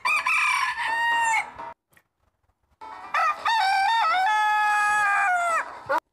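A rooster crowing twice: a first crow that ends under two seconds in, then a second, longer crow that finishes on a long held note near the end.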